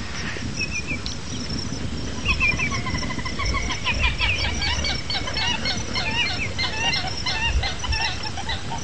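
Many birds calling at once, short chirps and clucks overlapping densely, over a low rumble.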